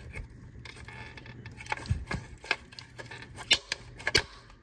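Plastic wiring connector being worked off the back of a car alternator by hand: scraping and rubbing, with a few sharp clicks and snaps, the loudest about three and a half seconds in and just after four seconds. The wires are being unplugged because they have melted from an alternator fault.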